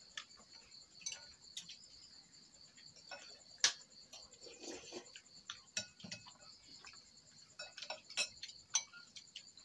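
Spoons and chopsticks clicking against ceramic bowls as people eat porridge: scattered small clinks, one sharper than the rest a little over three and a half seconds in. Behind them, a steady high chirring of night insects.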